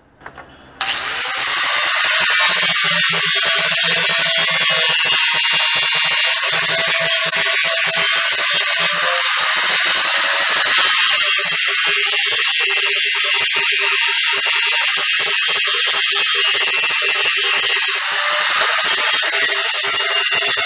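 Handheld angle grinder grinding steel frame tubing: a loud, steady hiss of the disc on the metal over the whine of the motor, starting about a second in.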